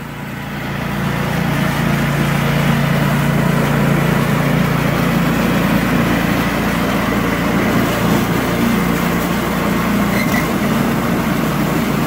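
John Deere TRS27 two-stage snowblower with a swapped-in small gas engine, running steadily under load as it clears deep snow. It gets louder over the first couple of seconds, then holds level.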